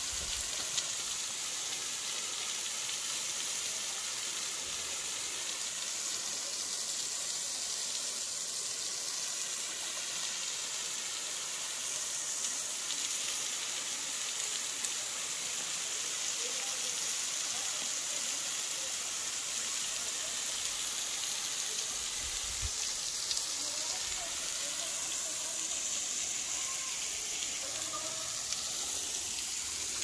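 Waterfall falling onto rocks: a steady rushing hiss of water and spray.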